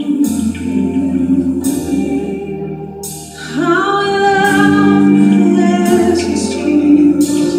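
Live gospel praise-and-worship music: a choir and singers over a band with a low bass line and cymbal crashes every second or so. A little past halfway, a voice glides up into a long held note.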